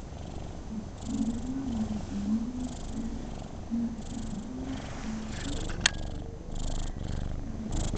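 Cat purring steadily up close while being stroked, the purr swelling and easing with each breath. A single sharp click about six seconds in.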